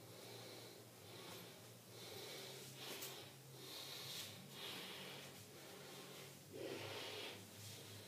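A person's faint, uneven breaths, several soft puffs of air with the strongest about seven seconds in, over a steady low hum.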